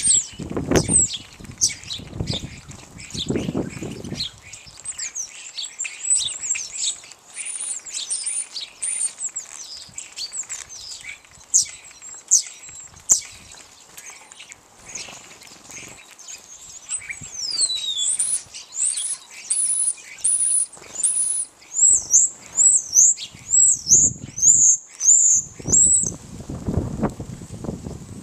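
A flock of European goldfinches twittering: a continuous stream of quick, high chirps and short trills, with a run of repeated chirps about two a second in the last few seconds. Low rumbling bursts come in near the start and again near the end.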